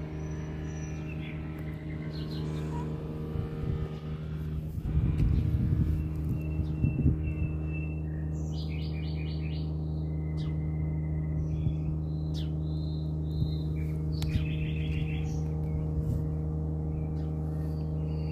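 Small birds chirping in short repeated bursts over a steady low hum, with a louder burst of low rumbling noise about five seconds in.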